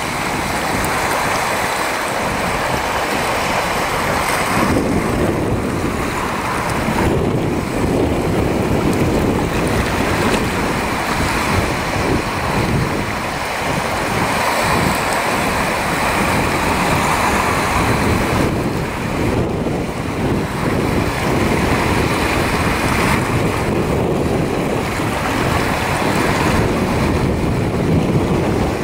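Surf breaking and washing through shallow water, a steady loud rush, with wind noise on the microphone.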